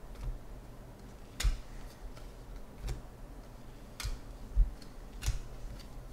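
Sharp clicks of baseball cards snapping against the stack as they are flipped from one hand to the other, four clicks about a second apart, with a few dull low bumps from handling.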